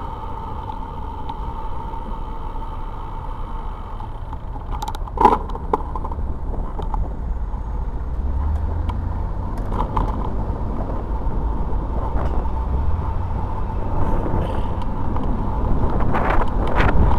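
Bicycle riding along a city street heard from a bike-mounted camera: steady road rumble and wind noise with car traffic, a faint steady hum, and a few sharp clicks about five and ten seconds in. Wind on the microphone grows louder near the end.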